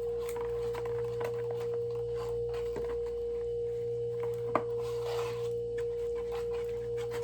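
A steady, unchanging high hum at one pitch, with a lower hum beneath it. Faint small clicks and rustles are scattered through it, and one sharp click comes about four and a half seconds in.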